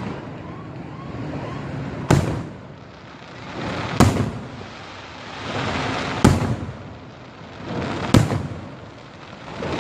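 Aerial fireworks bursting: four loud bangs about two seconds apart, with a swelling noisy wash of sound between them.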